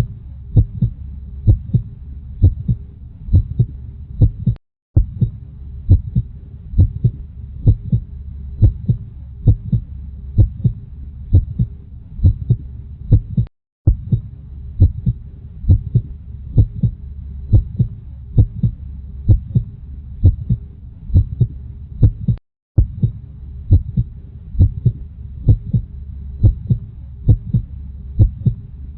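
Heartbeat thumping steadily in regular lub-dub pairs over a low rumble, as if heard through a stethoscope. The sound cuts out for a split second three times, about every nine seconds.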